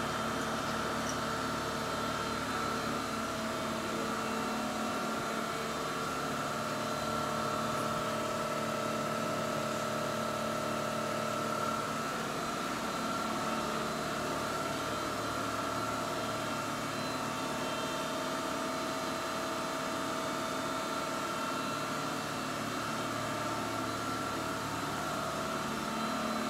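Semco VMC 1000 CNC bed milling machine running: a steady mechanical hum with a high whine and a few lower tones, holding even throughout.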